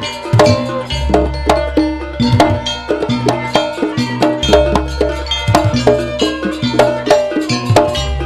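Jaranan gamelan ensemble playing: drums and ringing metal percussion struck in a fast, steady rhythm over a deep sustained low tone that drops out briefly a few times.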